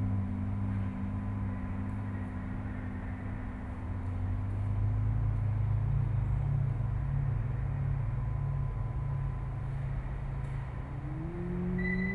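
A low, steady droning rumble made of held hum tones, shifting slightly in pitch partway through; about eleven seconds in, one tone glides upward and a higher steady tone comes in.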